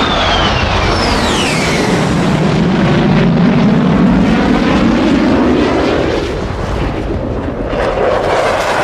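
Onboard sound of an HLK-31 electric RC plane in flight: a steady rush of wind over the camera with the motor and propeller running. A high whine falls in pitch during the first two seconds, and a lower drone swells and rises in pitch through the middle.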